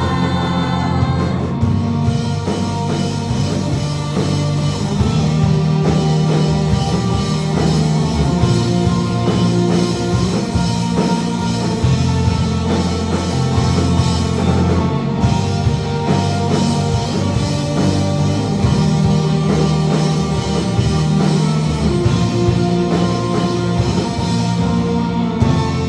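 A live band playing an upbeat, rock-styled worship song, with drums, guitar and singing.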